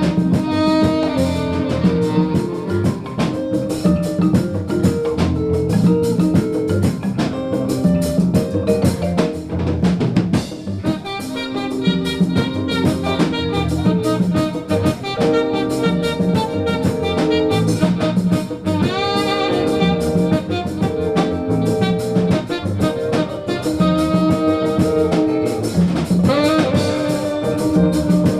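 Live jazz band music, with a drum kit keeping a steady beat under horns. Rising melodic runs come about two-thirds of the way through and again near the end.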